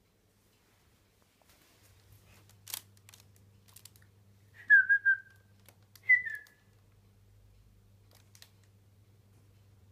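A person whistling short notes: a quick run of three falling notes about five seconds in, then one more falling note a second later. A light click comes a couple of seconds before.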